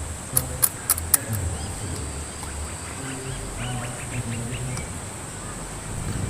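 Four sharp knocks in quick succession about half a second to a second in, then a run of short calls from ducks quacking, over a steady high-pitched insect drone.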